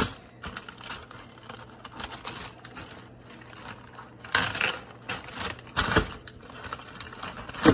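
Plastic zip-top bag crinkling as it is handled and its seal is pulled open, a rapid run of small clicks and rustles with louder bursts about four and a half and six seconds in.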